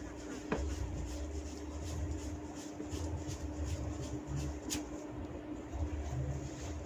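Hands massaging a head and tugging the hair: scratchy rustling of hair rubbed against the scalp, with a sharp crack about half a second in and another just before the five-second mark, over a steady low hum.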